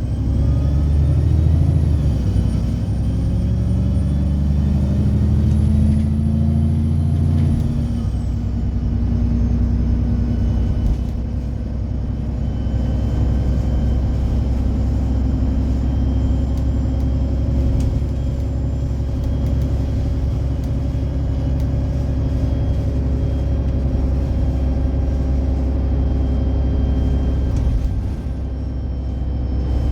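Alexander Dennis Enviro 300 single-deck bus running, with a high whine that rises and holds while the engine note climbs, then drops away about eight seconds in. After that the engine runs steadily.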